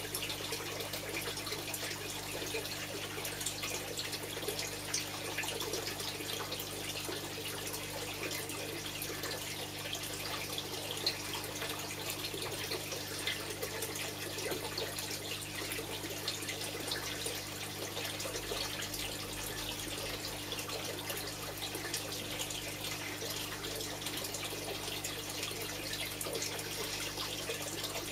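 Steady trickling and small splashes of water in a koi pond, over a low, steady hum.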